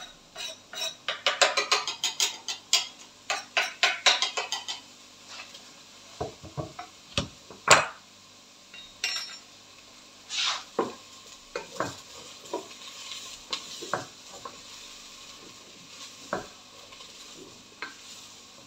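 Chopped garlic pushed off a wooden cutting board into an enamel pot, a quick run of clicks and taps, followed by a few loud knocks against the pot. Then onion and garlic sizzling faintly in hot oil, with occasional knocks of a wooden spoon stirring in the pot.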